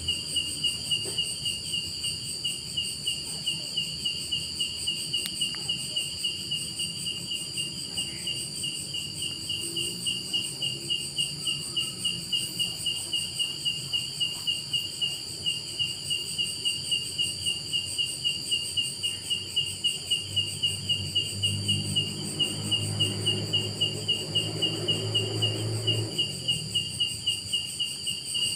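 Night-time insect chorus: one insect chirping in a steady, evenly spaced pulse over continuous high trills from others. A faint low rumble joins for several seconds near the end.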